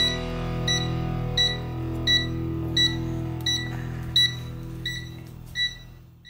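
Background music of held chords with a short high chime repeating about every 0.7 s, fading out near the end.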